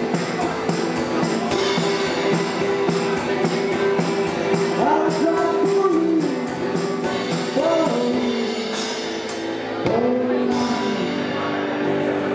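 Live rock band playing: drum kit keeping a steady beat under banjo, acoustic guitar and electric guitar, with a singing voice. The music drops back briefly about nine seconds in, then comes in loud again.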